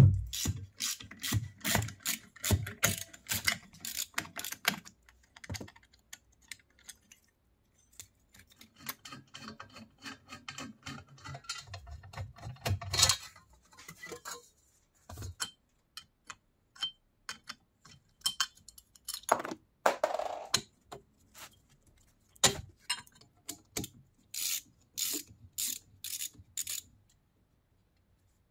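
Old electric motor of a Soviet NS-SH bench drill press being handled and worked on: a sharp knock at the start, then runs of quick metallic clicks and clacks, several a second, and scattered separate taps and clunks later.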